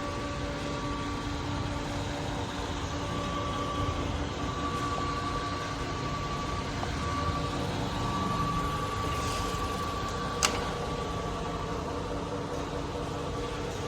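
M1TR milling machine running steadily, a constant mechanical hum with a steady whine, and a single sharp click about ten seconds in.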